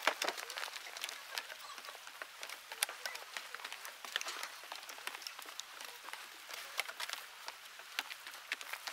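Footsteps going down wooden boardwalk stairs: many small, irregular clicks and ticks over a faint steady hiss.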